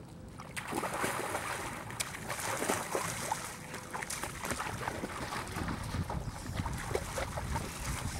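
Water splashing: a person jumps into shallow lake water about half a second in, then irregular splashes as people wade and kick through it.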